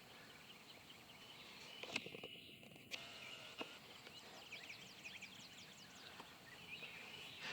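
Faint outdoor garden ambience with small birds chirping and twittering throughout, and a few soft clicks about two to four seconds in.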